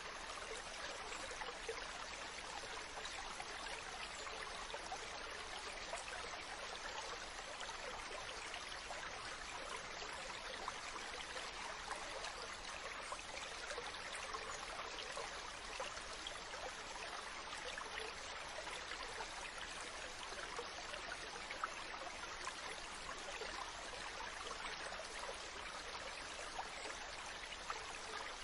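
Water flowing and babbling steadily, with a constant rush flecked with many small splashes and drips.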